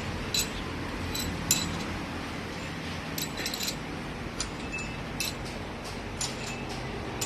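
Scattered light metallic clinks and taps of tools and engine parts being handled during an engine overhaul, each with a short high ring, over a low background hum.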